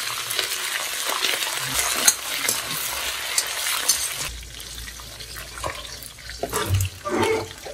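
Food sizzling as it fries in a hot pan, stirred with a spoon that clicks and scrapes against the pan. The sizzle drops away about four seconds in, leaving a quieter low hum and a few stirring clicks.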